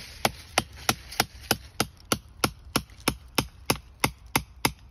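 Hammer blows at a steady pace of about three a second on the end of a red-handled tool, driving it into a stump of fatwood (resin-soaked pine) to split off pieces.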